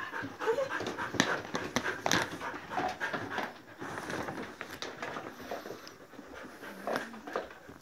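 Several excited dogs panting rapidly at close range, with a few sharp clicks or knocks mixed in, the loudest about a second in.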